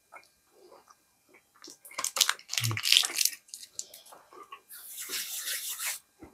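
Paper candy wrapper crinkling and rustling as Mamba fruit chews are handled and eaten, in clusters of crackles with a longer rustle about five seconds in, mixed with chewing.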